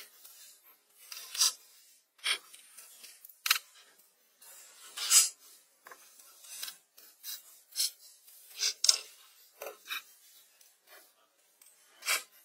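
Short, irregular scrapes and rasps of stone and grit being shifted by hand, roughly one a second, some sharper and louder than others.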